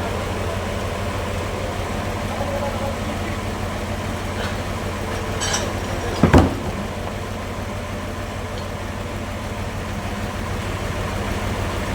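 Sawmill machinery engine running steadily at idle, with one sharp knock about six seconds in.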